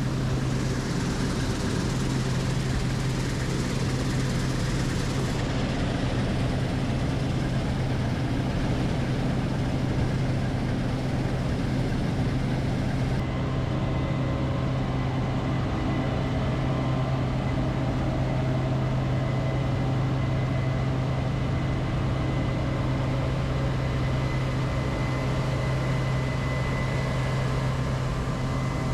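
Farm machinery running steadily, a constant low hum with mechanical noise over it. The upper hiss drops away abruptly twice, about 5 seconds in and again about 13 seconds in.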